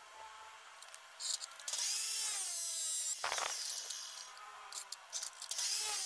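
Abrasive cut-off saw cutting a steel bar. The loud grinding starts about two seconds in, its pitch sliding as the wheel bites and slows, and comes back strongly near the end.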